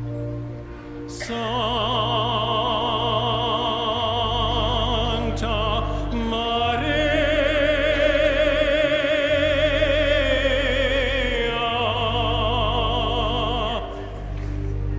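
A solo singer with strong vibrato sings long held notes over low, steady sustained accompaniment, typical of an organ. The voice comes in about a second in and pauses briefly near the end.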